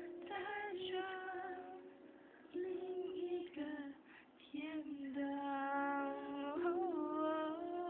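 A female voice singing a slow ballad over soft music. It holds long, wavering notes that break off briefly twice.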